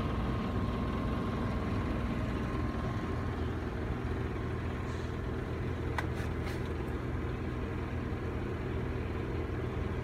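A running furnace with a steady low hum from its motors. A single sharp click about six seconds in.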